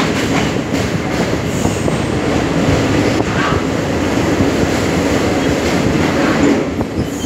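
Railway train running along the track: a loud, steady rumble of wheels on rails with a light clickety-clack.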